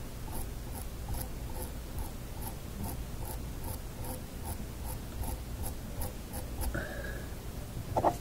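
Faint, even ticking, about three ticks a second, over a steady low hum; the ticking stops a little before the end.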